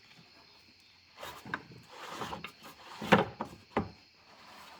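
A few knocks and scrapes as the fuel pump's lock ring is turned and seated over the rubber seal on the fuel tank. The loudest knock comes about three seconds in.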